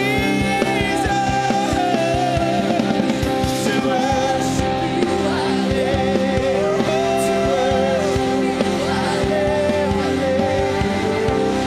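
Live worship band music: a held keyboard chord, drums, and a voice carrying a wavering melody line over them.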